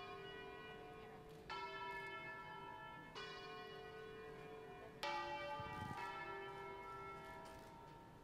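Bells ringing slowly. A new struck note of a different pitch comes about every two seconds, each one ringing on as it fades.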